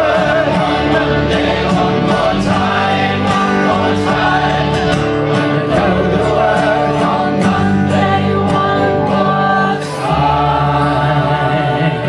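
Live acoustic folk band playing: strummed acoustic guitar and double bass, with several voices singing together.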